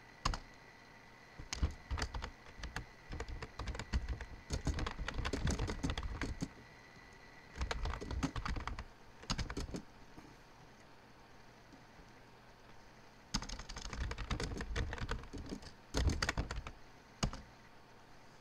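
Typing on a computer keyboard: quick runs of keystroke clicks, with a pause of about three seconds a little past the middle before a last run of typing.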